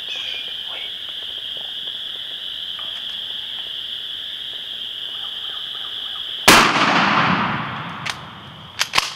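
A single shotgun blast about six and a half seconds in, echoing off the woods as it dies away: the hunter shooting a wild turkey gobbler. A steady high-pitched chorus sounds in the background before the shot, and a few sharp clicks follow near the end.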